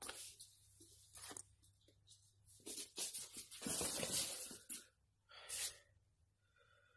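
Quiet rustling and scraping as a plastic dog bowl full of food is carried and set down on an artificial-grass mat, the longest scrape about three seconds in and lasting a second or two, with a few shorter rustles around it.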